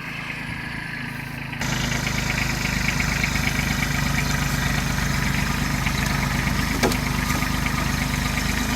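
Tractor engine running steadily, jumping louder about a second and a half in and then holding at the higher level, with one sharp knock near the end.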